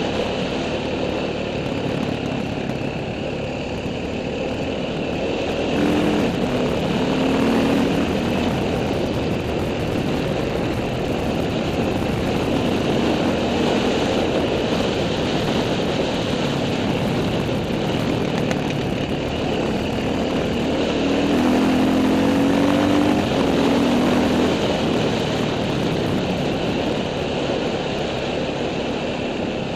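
Off-road motorcycle engine running while riding a dirt track, mixed with steady wind noise on the helmet camera. The engine gets louder about six seconds in and again about twenty-one seconds in.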